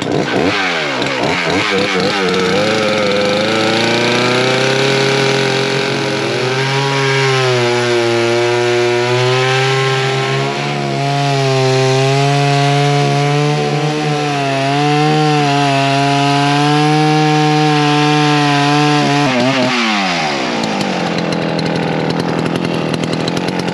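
Large two-stroke chainsaw crosscutting a spruce log: it revs up in the first seconds, runs at high revs under load with the pitch sagging and recovering as it bites, then drops back to idle about 20 seconds in as the cut finishes.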